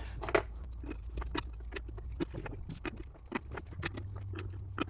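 Irregular light clicks and taps of hand work on metal motorcycle parts, over a steady low hum.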